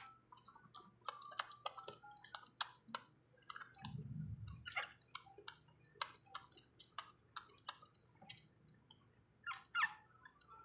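Two-week-old pug puppy suckling milk from a feeding syringe: faint wet smacking and many small clicks of its mouth, with a soft thump about four seconds in and a brief squeak near the end.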